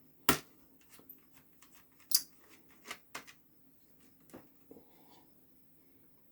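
A screwdriver working a small screw out of an all-in-one PC's case: scattered sharp clicks and light scraping, the loudest click just after the start.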